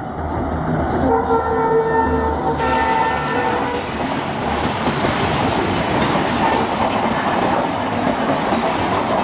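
Diesel-hauled passenger train passing at speed, with a locomotive horn sounding for about a second and a half around a second in, over the low engine hum. After that the rumble and rhythmic wheel clatter of coaches running over the rail joints carry on.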